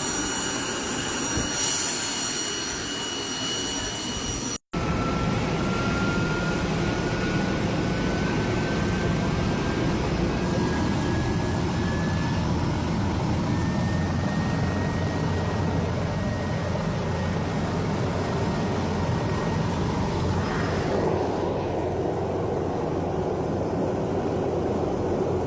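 Helicopter turbine engine and rotor running with a steady high whine. After a short break about five seconds in, the whine rises slowly in pitch over a dense, low, steady rumble.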